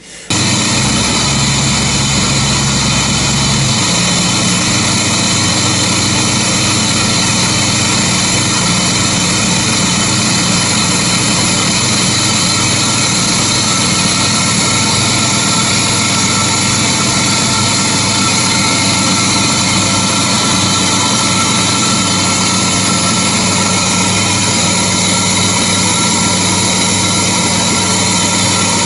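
1953 Chevrolet 3100 pickup's engine running at a steady, somewhat high idle as the truck is moved a few metres forward. It starts suddenly just after the opening, and its deepest part changes about four seconds in.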